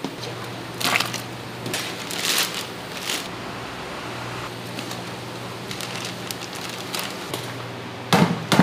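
Scattered rustling and a few short knocks from food and utensils being handled, over a steady low electrical hum; two louder knocks come near the end.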